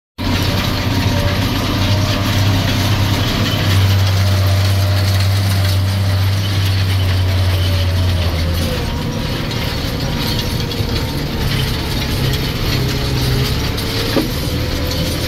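Tractor diesel engine running steadily under load, heard from inside the cab, with the cab rattling as it drives over rough, frozen ploughed ground. The deep engine drone eases a little about halfway through.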